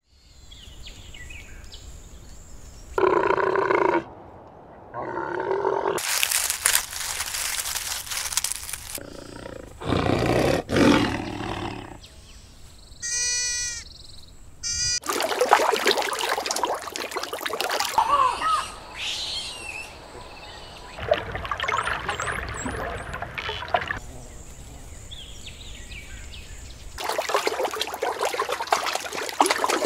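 A string of different animals' calls and cries, a few seconds each with short gaps between, beginning with zebra calls.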